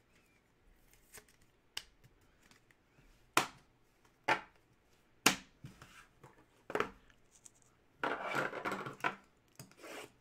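Packaging being cut open with a sharp knife at a table: four sharp knocks, then about a second of scraping and rustling near the end.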